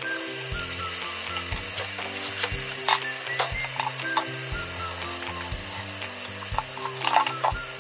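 Background music with a steady beat about once a second and short plucked notes over held low tones. A few light clicks and knocks of kitchen utensils come through, around the middle and again near the end.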